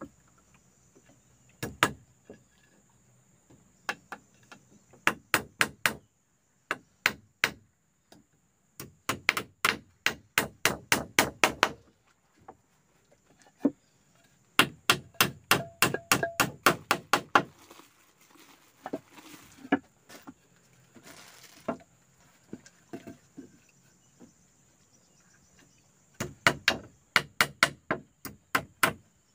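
A hand tool striking wood in quick runs of hard blows, about four a second, with short pauses between runs, as in construction work on a timber raft. A faint steady high insect buzz runs behind.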